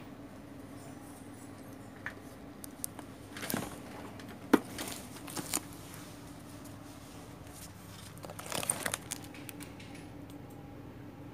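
Plastic-wrapped parcels being handled: scattered crinkles of the plastic wrap and light knocks, with a sharp knock about four and a half seconds in and a burst of crinkling near nine seconds, over a low steady hum.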